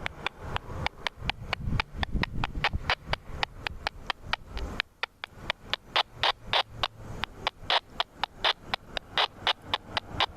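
Freight train wheels clicking rapidly over rail joints as the cars roll past, about four to five clicks a second, over a low rumble that briefly drops away about halfway through.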